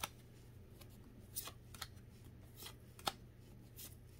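Pokémon trading cards being flipped through by hand, each card slid off the front of the stack with a short, quiet snap; about six snaps, unevenly spaced, over a faint steady low hum.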